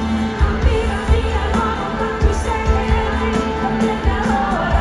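Live pop music: a woman singing with a band, drums keeping a steady beat and brass in the accompaniment, heard from the audience.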